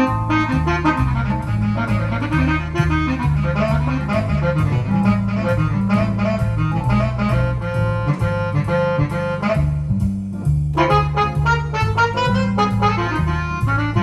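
Jazz organ solo on a keyboard with a Hammond organ sound: quick right-hand melody lines over a walking bass line. The melody breaks off briefly about ten seconds in, then resumes.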